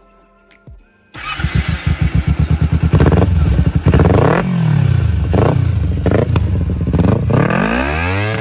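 Kawasaki Ninja 250R's 249 cc liquid-cooled, fuel-injected parallel-twin starting about a second in, then revved in a string of quick throttle blips, with a longer climbing rev near the end, through an aftermarket slip-on exhaust.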